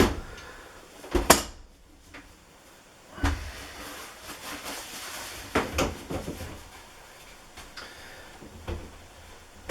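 Paper towel rustling as excess pipe dope is wiped off, among scattered light knocks and clunks from plumbing fittings and tools being handled and set down.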